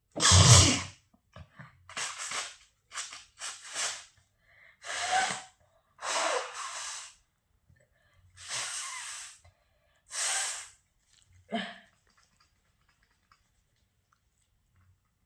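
A person sneezing over and over: about nine sharp, noisy bursts a second or two apart, the first and loudest right at the start, the last and smallest about twelve seconds in.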